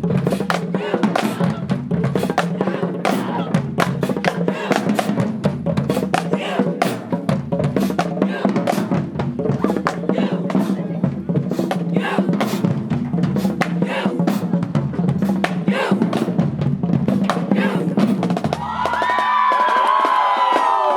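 Marching band drumline playing a marching cadence: rapid snare strokes and rolls over a bass drum beat about once a second. Near the end the drumming stops and loud voices take over.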